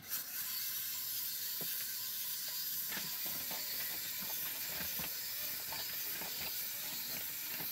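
Clockwork spring motor of a small plastic Z Windups Neutron wind-up robot running down, a steady whir from its gears as the toy walks, with faint scattered clicks.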